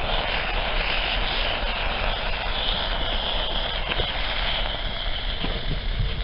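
Small batch of iron-oxide and aluminium-powder thermite burning in an eggshell, giving a steady hissing roar with a few sharp ticks.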